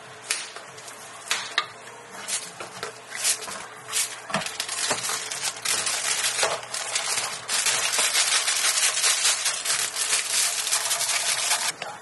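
A few sharp clicks of plastic dome lids being pressed onto plastic takeout cups, then a long stretch of dense crinkling plastic film and bag as the drinks are wrapped and packed, loudest in the last few seconds before it stops suddenly.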